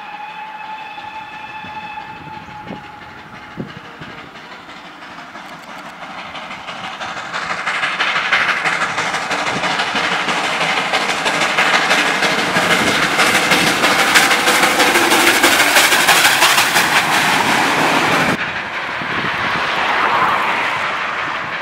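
Ol49 steam locomotive sounding its whistle in one steady blast at the start, then drawing near and running past at speed with dense rail clatter, loud for about ten seconds. The sound drops sharply a few seconds before the end, and the train is heard going away.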